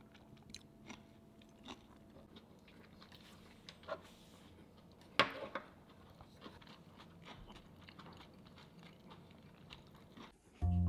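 Quiet chewing of a mouthful of seaweed-wrapped gimbap, with small mouth clicks and a sharper click about five seconds in. Mallet-instrument music starts near the end.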